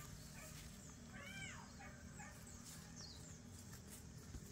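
A single short domestic-animal call, rising then falling in pitch, about a second in, followed by a few faint high chirps over a low steady hum.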